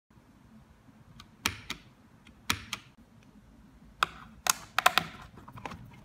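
Mechanical keyboard with Cherry MX Red linear switches clacking: two key presses, each a clack down and a clack back up, then a quicker run of plastic clacks about four seconds in.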